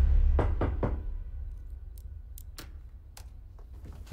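Three quick knocks on a door in the first second, over a low rumble that fades away, followed by a few sharp separate clicks.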